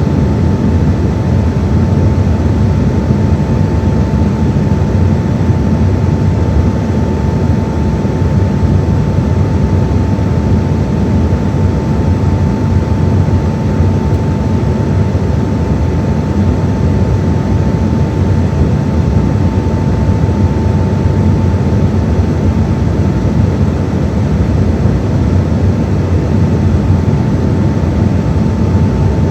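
Cabin noise of an Embraer 195-E2 in flight: the steady rush of its geared turbofan engines and the airflow, with a thin steady whine over it.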